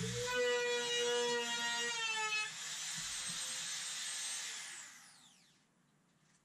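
Handheld trim router starting up with a high, steady whine. About two and a half seconds in, its pitch dips and a rougher cutting noise takes over as it works the laminate edge. It is switched off a little after four seconds in and winds down with a falling whine.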